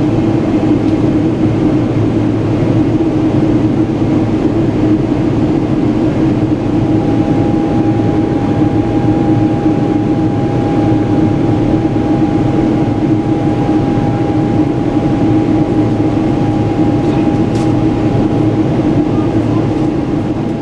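Steady cabin noise inside a Boeing 777 airliner in flight: engine drone and rushing airflow, with a constant low hum and a thin higher tone joining about seven seconds in.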